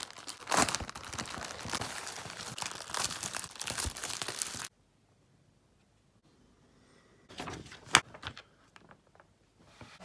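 Crinkling and tearing of packaging, handled for about four and a half seconds and then cut off abruptly. After a short quiet, a few light knocks follow, with one sharp click about eight seconds in, the loudest sound.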